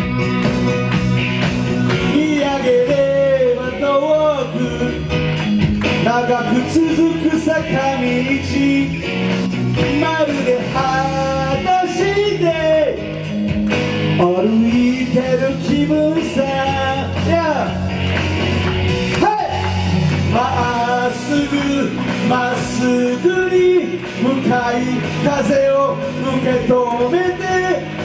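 A man singing a rock song in Japanese into a microphone, live, over amplified instrumental backing with steady sustained chords.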